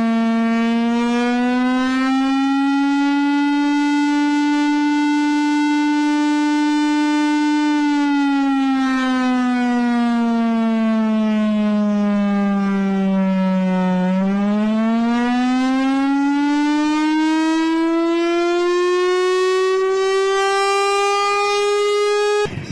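Civil defence air-raid warning siren wailing, the signal for a blackout drill. Its pitch rises slowly, holds, sinks to its lowest about 14 seconds in, then climbs again, and it cuts off near the end.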